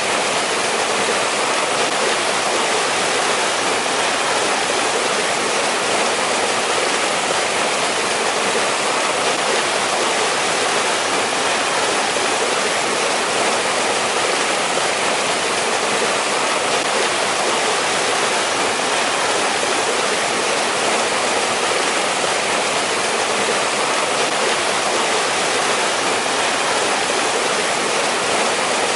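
Mountain stream rushing steadily over rocks, a constant even water noise with no breaks.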